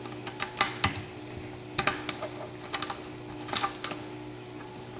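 Light, irregular metal clicks and ticks, in small clusters, as a small hand tool works loose the screws holding the scale applicator device, with a faint steady hum under them.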